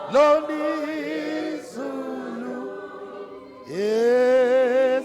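A cappella hymn singing in isiZulu. Near the end a voice slides up into a long held note with a wide vibrato.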